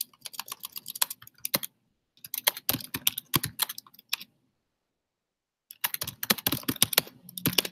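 Typing on a computer keyboard: three quick runs of keystrokes with short silent pauses between them.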